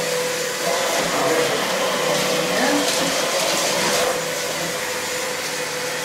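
Comfyer 2-in-1 cordless stick vacuum running as it is pushed over a rug: a steady motor whine over the rush of suction, with a few short rattles about two to four seconds in.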